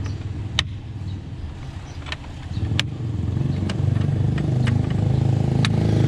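Plastic and metal airbox lid clips on a Ford Ranger T6 snapping shut as the air filter housing is fastened: several sharp clicks at uneven gaps. A steady low hum runs underneath and grows louder about three seconds in.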